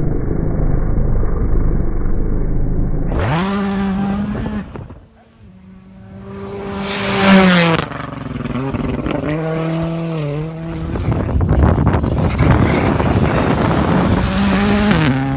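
Modern rally car engine revving hard through the gears, its pitch climbing and then dropping at each gear shift, loudest about seven seconds in as the car goes past. The first three seconds hold only a muffled rumble before the sound cuts to the clear engine note.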